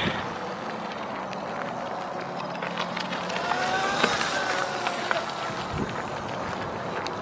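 Small OSET electric kids' dirt bike riding across asphalt: a faint motor whine that rises and falls in pitch a few seconds in, over steady background noise.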